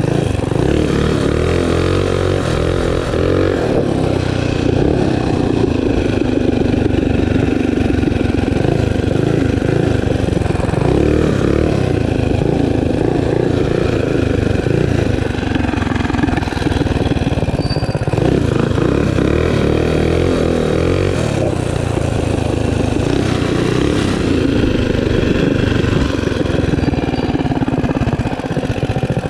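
Baja Warrior minibike's small single-cylinder engine running steadily while riding, its note rising and falling a little with the throttle.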